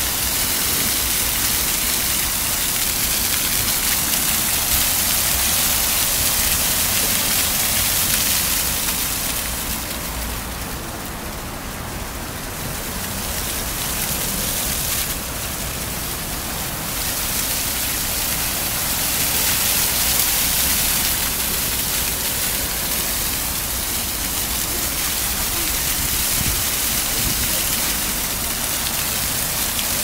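Water jets of a floor fountain splashing down onto wet paving stones: a steady, rain-like hiss of falling water, easing off for a few seconds about a third of the way through and again around the middle.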